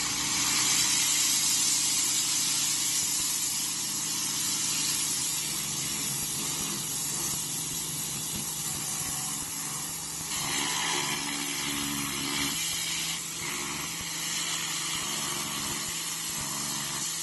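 Pressure washer spraying water against the underside of a riding mower's deck to blast off caked grass clippings: a steady hiss of spray over the machine's hum. The spray's note shifts about ten seconds in as the jet moves to another part of the deck.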